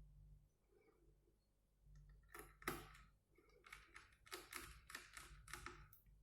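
Faint, irregular clicks and taps of a small screwdriver and screws on a laptop's plastic case as a part is screwed down, bunched in the second half.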